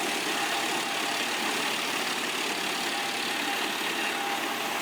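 Large industrial wood trunk crusher powered by a Caterpillar 780 hp engine, running with a steady, even mechanical noise and no distinct impacts.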